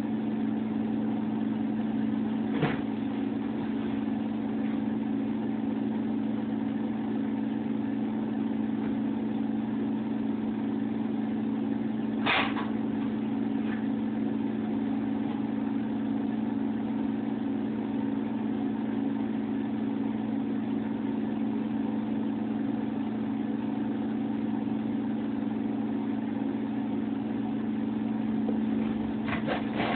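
A steady, low mechanical hum, with two brief clicks, about 2.5 seconds and 12 seconds in.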